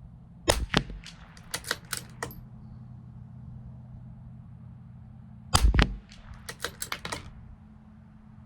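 Two shots from a CZ 457 LRP .22 LR bolt-action rifle, about five seconds apart. Each shot is followed by a quick run of metallic clicks as the bolt is worked to eject the case and chamber the next round.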